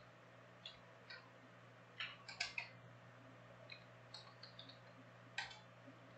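Faint, irregular light clicks and taps, with a louder cluster about two seconds in and another near the end, over a steady low hum.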